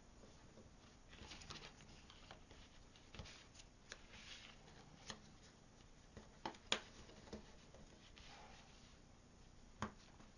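Faint rustling and a few light clicks of cut-out template pieces being handled and pressed together by fingers into a triangle.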